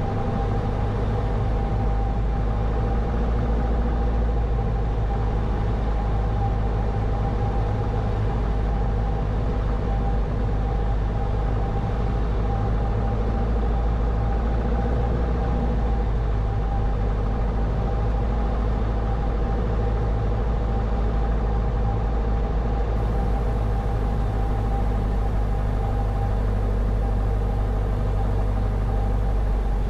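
Steady drone of a Grumman American AA-5 single-engine light aircraft's piston engine and propeller on final approach, an even hum that holds without change.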